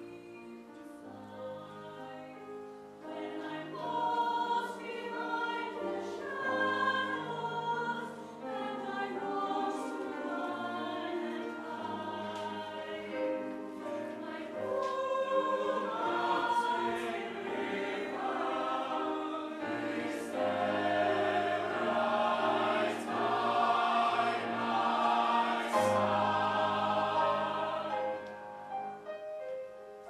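Mixed youth choir singing with grand piano accompaniment, starting softly, growing fuller and louder through the second half, then falling away just before the end.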